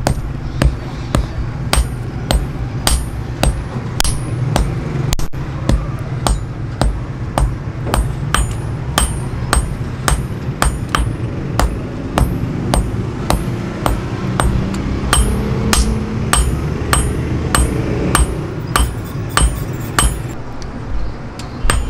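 Hand hammer striking a red-hot steel blade on a steel anvil block, an even rhythm of about two ringing blows a second.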